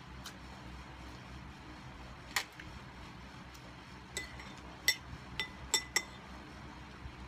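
A metal spoon clinking against a glass bowl: one sharp click a little over two seconds in, then a quick run of five or six light, ringing clinks in the second half.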